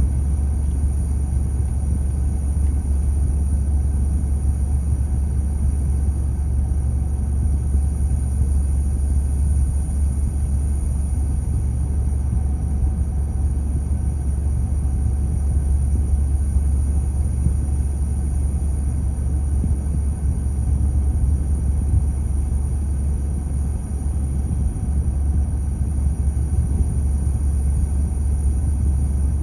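Steady low rumble heard from inside a car idling in stopped traffic, with a thin, constant high tone above it.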